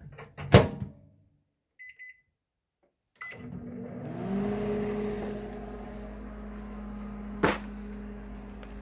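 Panasonic Genius inverter microwave oven: its door shut with a sharp clack, a few short keypad beeps, then the oven starting up and running with a steady hum whose tone rises and settles as it gets going. One more sharp knock comes near the end.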